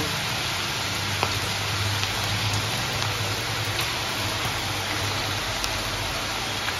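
Besan- and rice-flour-coated okra deep-frying in very hot oil: a steady, dense sizzle with a few faint pops.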